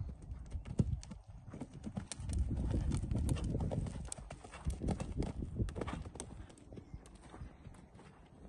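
Hoofbeats of a horse cantering on a sand arena, a run of dull thuds that is loudest from about two to four seconds in as the horse passes close, then fades as it moves away.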